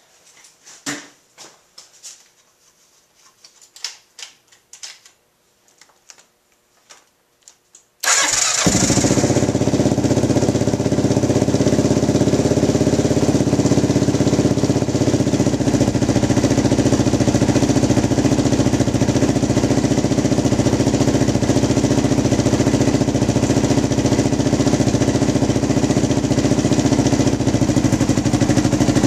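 A 1987 Kawasaki KLR650's single-cylinder four-stroke engine starts about eight seconds in and then idles steadily, run after an oil change to circulate the fresh oil through the filter. A few light clicks and knocks come before it starts.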